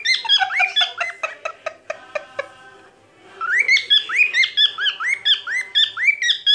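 Cockatiel singing its typical song: a fast run of short rising, arched whistled notes, about three a second. The notes break off for about half a second near the middle, then the run starts again.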